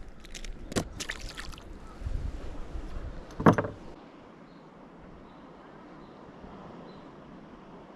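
Knocks and clatter of gear being handled on a small moored fishing boat, the loudest a single thump about three and a half seconds in. After that only faint wind and water noise.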